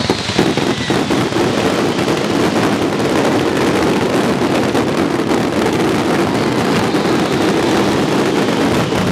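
Many fireworks bursting at once: a loud, dense, continuous crackle of countless small reports that stays steady throughout.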